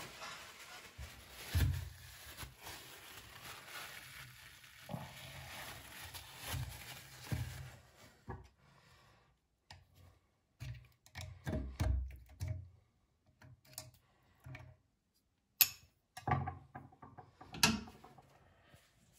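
Handling clicks and knocks of a screwdriver and chrome parts on a mixer tap over a ceramic basin, with scattered low thumps and two sharp clicks near the end.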